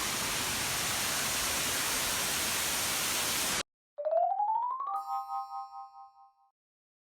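Steady rush of water that cuts off abruptly about three and a half seconds in. After a brief silence an added sound effect plays: a rising tone glides up and settles into a ringing chime chord that fades out with a wavering pulse.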